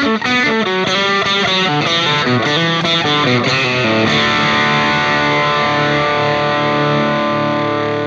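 Title theme music: a distorted electric guitar plays a run of quick notes for about four seconds, then holds a long chord that slowly fades.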